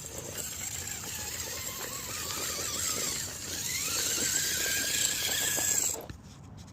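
Electric drive motor and gears of an RC rock crawler whining as it drives, the pitch wavering, dipping about three seconds in, then rising and holding steady, with light clicking and knocking under it. The whine stops suddenly about six seconds in.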